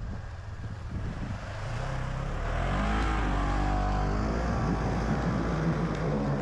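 Side-by-side UTV engine revving under load, its pitch rising and falling with the throttle, growing louder about two seconds in.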